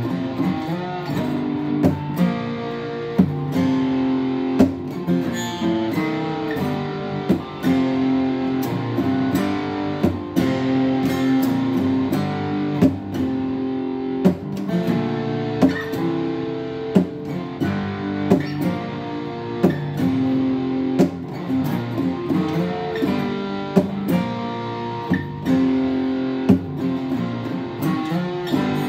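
Acoustic guitar played solo: ringing picked notes and chords with sharp accented strokes about once a second.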